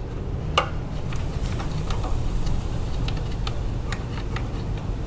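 Socket ratchet clicking in short back-and-forth strokes, about two to three clicks a second, as a heat-shield bolt is backed out. A steady low hum runs underneath.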